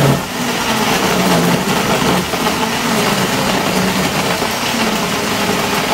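Philips countertop blender running steadily at speed, churning milk, ice cubes and ice cream in its jug.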